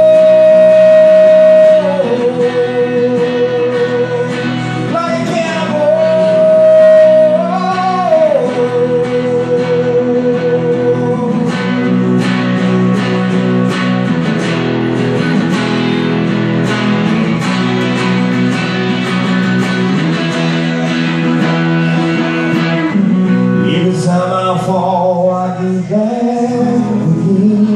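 Live male singer with electric guitar: he holds two long, wavering notes, each stepping down to a lower one, in the first eight seconds. The guitar then plays on its own with steady strumming through the middle, and the voice comes back near the end.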